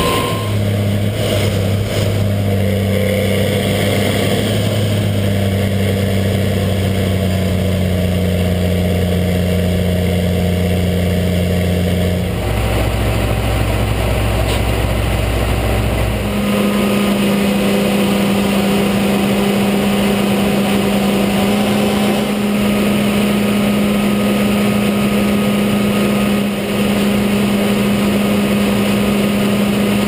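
Harvest machinery engines, a tractor and a combine, running steadily with a constant low drone over a wash of mechanical noise. The drone's pitch changes abruptly twice, about twelve and sixteen seconds in.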